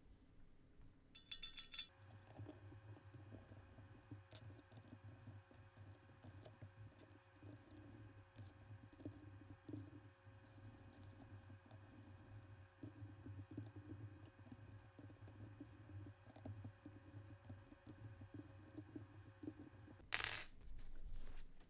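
Faint, irregular light clicks and small clinks of mechanical keyboard parts being handled during assembly, over a faint steady hum. A brief rapid ticking comes about a second in, and a short louder rustle comes near the end.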